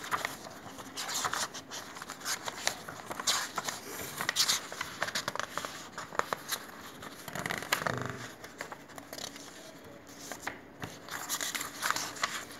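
Sheets of printed paper rustling and crinkling as they are handled, with scattered small clicks and scrapes.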